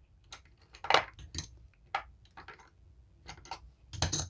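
Casino chips clicking and clinking against one another as they are picked from a chip rack and stacked onto a bet on a craps layout: a scattering of separate clicks, the loudest about a second in and a quick cluster near the end.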